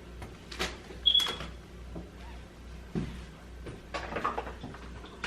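Meal-kit packaging and ingredients being handled on a kitchen counter: a few knocks of items set down and rustles of packaging, with a brief high squeak about a second in.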